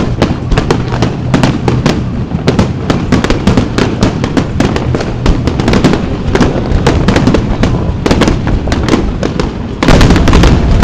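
Aerial fireworks display: a rapid, continuous run of shells bursting with sharp bangs and crackles. About ten seconds in it suddenly turns louder and heavier as many shells burst at once.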